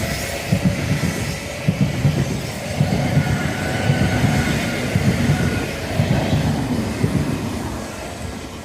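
A train running past, its wheels clattering over the rail joints with a thin steady squeal, fading as it moves away near the end.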